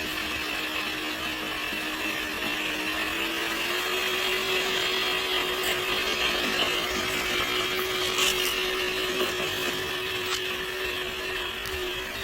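Electric motor and gear drivetrain of a Traxxas TRX-4 G500 RC crawler whining steadily as it drives. The pitch rises slightly about three seconds in and then holds, with a few sharp clicks.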